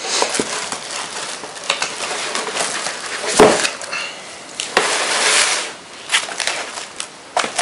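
Packaging handling as a boxed power supply is lifted out of its cardboard box: plastic wrapping rustling and cardboard scraping, with a sharp knock about three and a half seconds in and a longer crinkling stretch around five seconds in.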